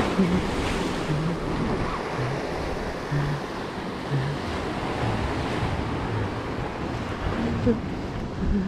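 Ocean surf breaking and washing over jetty boulders, a steady rush, with wind buffeting the microphone.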